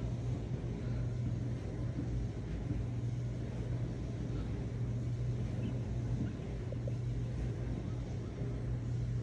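A steady low mechanical hum with a rumble beneath it, unchanging throughout.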